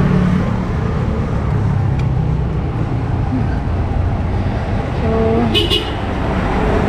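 Steady low street-traffic rumble heard while cycling along a road, with a large dump truck running close by near the end. About five seconds in there is a short pitched sound, then a brief high hiss.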